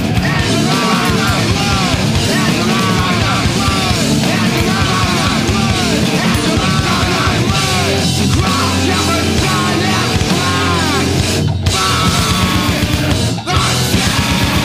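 Loud screamo/noise rock with distorted guitars and drums, broken by two short stops near the end.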